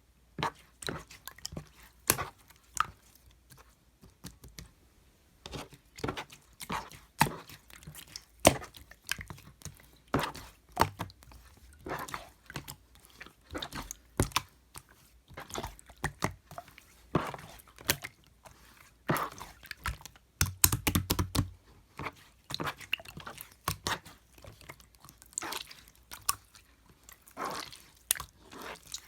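Hands squishing and poking slime, making irregular sticky clicks and wet pops. A denser run of squelching comes about two-thirds of the way through.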